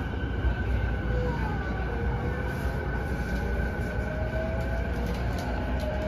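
Running sound inside a JR East E233-8000 series electric train car: a steady rumble of wheels on rail with a motor whine that rises in pitch as the train picks up speed.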